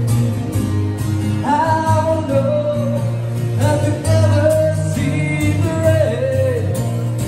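Live busker singing in a man's voice to his own strummed acoustic guitar, amplified through a small speaker.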